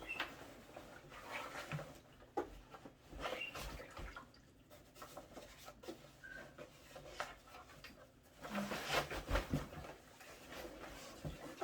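Irregular rustling and knocking as a plastic portable flushing toilet is handled and worked into its fabric carrying bag, with a louder spell of rustling and bumps about nine seconds in.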